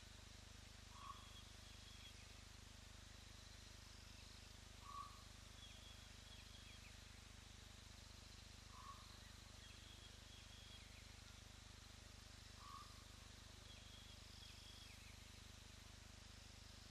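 Faint outdoor ambience: a steady hiss with a short animal call repeated four times, about four seconds apart, and fainter high chirps between, from birds or insects.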